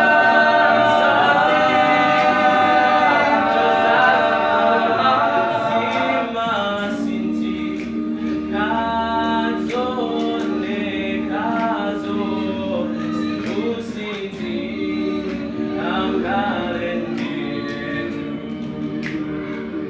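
A male a cappella group of seven singing unaccompanied in harmony. About seven seconds in, the lower parts settle into held chords beneath the moving upper line.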